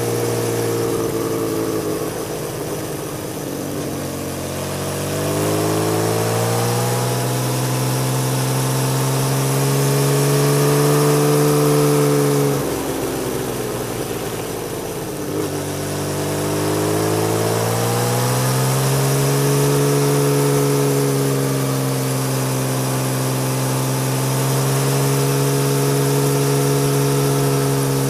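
Honda CBX1000's inline-six engine through a loud aftermarket Marving exhaust, heard from on board. The revs climb and hold steady, drop sharply about twelve seconds in as the throttle closes, then climb and hold again from about sixteen seconds.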